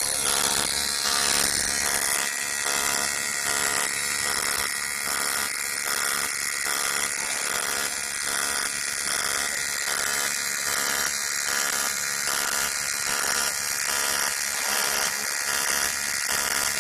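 Automatic TIG welder's arc on aluminium pipe, a steady high buzz with hiss that pulses regularly about one and a half times a second.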